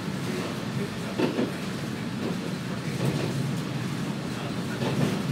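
Kominato Railway KiHa 200 diesel railcar running along the line, heard from inside the cab: a steady low drone from the engine and running gear. Wheels knock over rail joints about a second in and again near the end.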